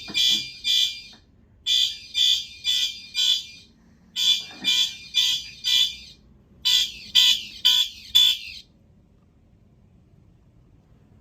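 Fire alarm horns sounding the code 4-4-4-4 pattern: short high-pitched blasts, about two a second, in groups of four with a short gap between groups. After the last group, about three-quarters of the way through, they fall silent for the long pause of the code cycle.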